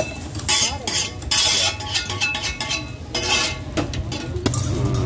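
Metal cookware being handled: scraping and clinking of metal utensils against a pan and steel plates in several short bursts, with a little frying sizzle left underneath.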